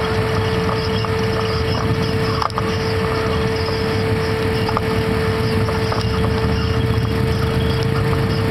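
ATV engine running steadily while riding over a rough, rocky trail, heard from on board the quad, with a steady high whine held throughout and a few knocks and rattles from the ride.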